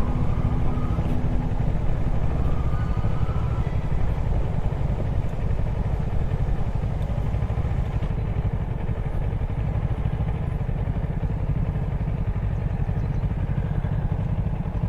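Motorcycle engine running steadily while riding a rough dirt track.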